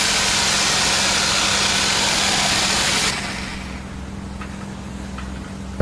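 An engine running steadily under a loud hiss; the hiss cuts off suddenly about three seconds in, leaving the engine hum quieter.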